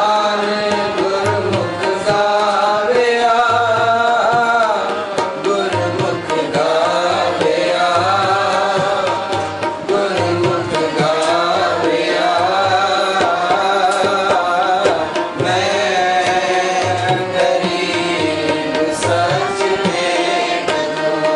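Kirtan music: a harmonium playing a held, wavering melody over a steady tabla rhythm.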